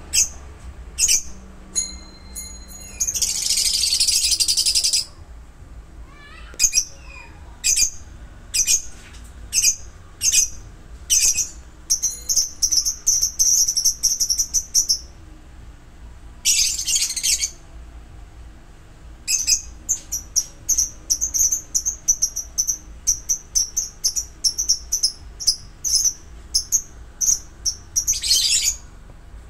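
Caged lovebirds chirping: sharp, high, repeated chirps and runs of rapid twittering, broken by three loud harsh screeches of a second or two each, about three seconds in, in the middle and near the end. A low steady hum runs underneath.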